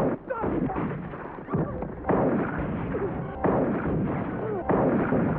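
A run of noisy bursts, each starting suddenly, about every one to one and a half seconds, with snatches of voice mixed in.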